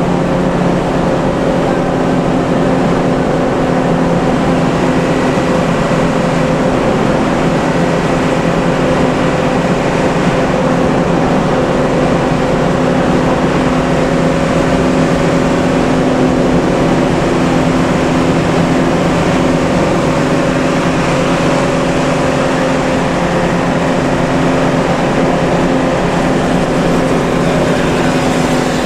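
Steady drone inside an intercity bus cruising on a toll road: engine and road noise with a constant hum, unchanging throughout.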